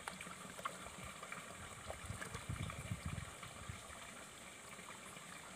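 Faint wet sounds of a hand digging into a muddy eel burrow in a waterlogged ditch bank: soft squelches and small clicks of mud and roots, over a faint steady hiss of water.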